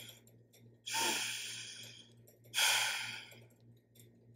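A woman breathing audibly twice, about a second and a half apart, each breath starting suddenly and fading away.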